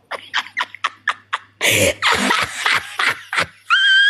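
A person laughing hard: a run of quick breathy bursts, then a louder, longer stretch of laughter, ending in a high-pitched rising squeal near the end.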